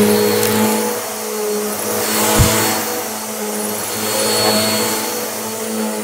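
Bissell upright vacuum cleaner running on carpet: a steady motor hum with rushing air, swelling and easing a little as it is pushed back and forth. A single low thump comes about two and a half seconds in.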